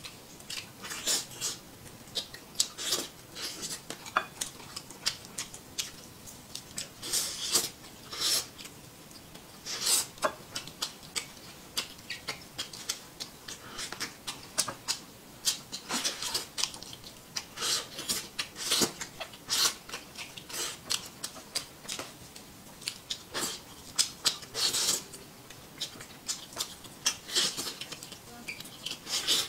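Close-up eating of roast chicken by hand: irregular wet smacking, chewing and tearing of meat and skin, a run of short sharp clicks at uneven intervals.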